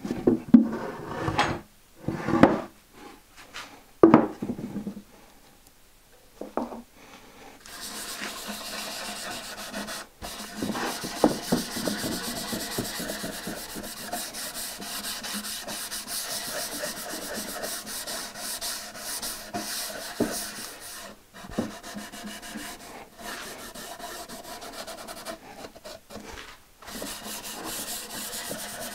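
Sponge rubbing a grey tint finish into the oak front edges of a drawer unit: a few short, separate strokes in the first seconds, then steady rubbing from about eight seconds in, broken by a few brief pauses.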